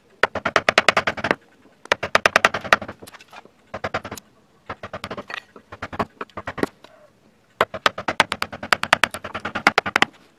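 Wood-carving gouge being driven into hardwood in quick sharp taps, about a dozen a second, in several bursts with short pauses between them.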